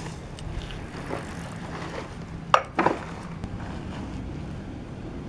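Single-cylinder diesel engine of a Kubota two-wheel hand tractor idling steadily, with two sharp metallic clanks about halfway through.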